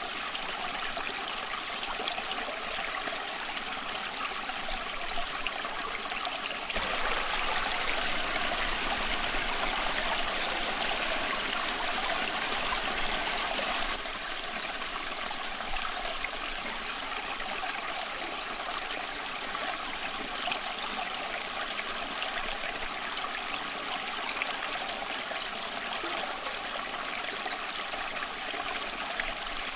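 A small stream flowing and trickling steadily, swelling a little louder for several seconds about a quarter of the way in.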